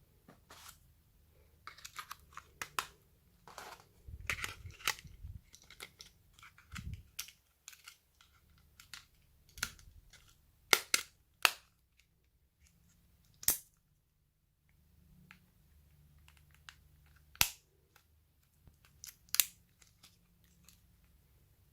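Hands handling packaging and a mobile phone: a scattered series of sharp clicks and taps with brief rustling, the loudest clicks coming singly or in pairs.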